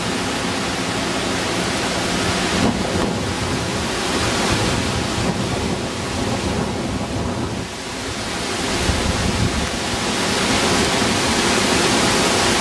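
Hurricane Ike's wind and heavy rain: a steady, loud rush of storm noise that eases briefly about two-thirds through and then builds again.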